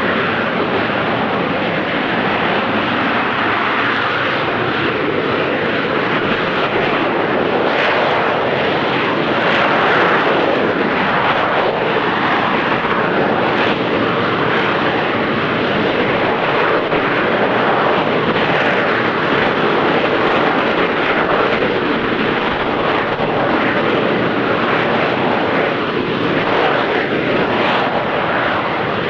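AV-8B Harrier hovering on the thrust of its Rolls-Royce Pegasus turbofan: a steady, loud jet rush with slight slow shifts in pitch as the jet turns in a 360° hover spin about halfway in.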